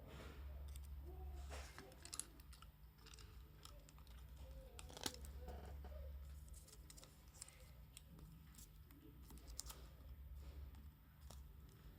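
Faint scattered clicks and taps of plastic smartphone parts being handled and pressed together as the back frame is fitted over the internals, with a few soft low rumbles of handling noise.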